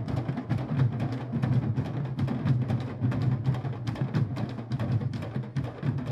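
Candombe drum ensemble of chico, repique and piano drums, struck with stick and open hand, playing a dense, fast interlocking rhythm. Crisp stick strikes sit over a deep, continuous pulse from the piano drums.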